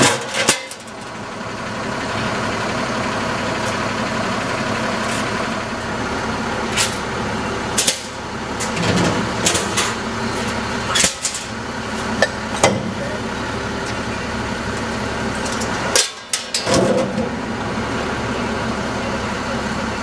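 Freightliner Condor front-loader garbage truck's diesel engine idling steadily, with several sharp clanks and knocks from trash cans being handled and emptied into the Curotto-Can carry can on its forks.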